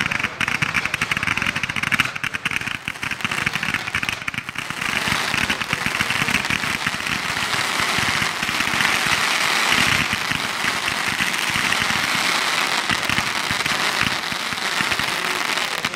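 Neon Peacock Tail firework fountain spraying sparks: dense, rapid crackling for the first four or five seconds, then a steady hiss.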